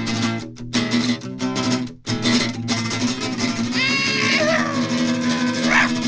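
Background music led by guitar, with a steady beat and bass line; from about four seconds in, a high wavering line slides up and down in pitch.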